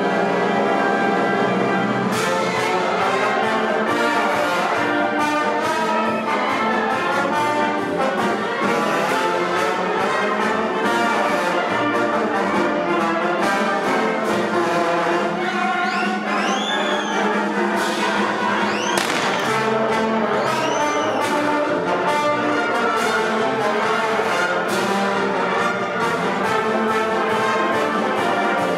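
Symphonic wind band playing full-band music, with trombones, trumpets and horns to the fore. A few short high swooping sounds ride over it about two-thirds of the way through.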